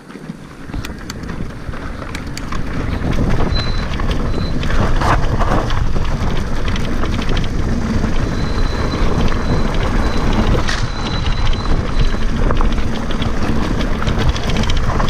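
Wind buffeting the microphone of a helmet-mounted camera and mountain-bike tyres rattling over a rough trail, getting louder over the first three seconds as speed builds, with many small knocks throughout.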